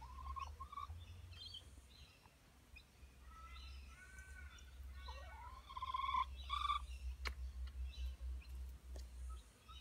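Ragdoll cat giving a few short meows, each rising in pitch and then holding briefly, the loudest about six to seven seconds in. A single sharp click follows a moment later.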